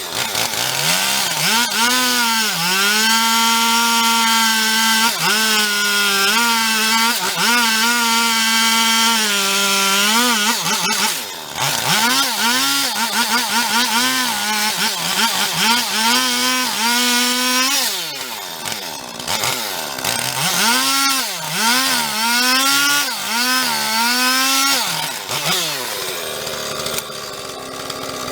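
Husqvarna 450 Rancher two-stroke chainsaw running at high revs and cutting into a wood slab, its pitch repeatedly sagging under load and climbing back, with steadier full-throttle stretches in between.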